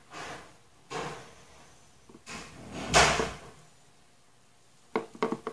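Handling noise from fingers tying and pulling tight a knot in PE braided fishing line: several soft swishes of the braid rubbing through the fingers, then two quick snaps near the end.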